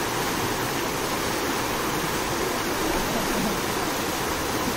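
Fast floodwater rushing steadily through a concrete storm-water drain.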